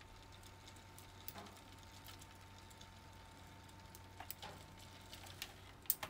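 Faint, irregular clicking and tapping from a plastic Theo Jansen Strandbeest kit's legs and joints as it walks across a tabletop, its propeller turned by wind from an electric fan. A sharper click comes near the end, over a steady low fan hum.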